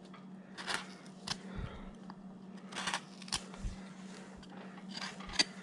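Number 5 carving gouge paring chips from a wood carving by hand: scattered short, light cutting clicks and scrapes at irregular intervals, over a faint steady hum.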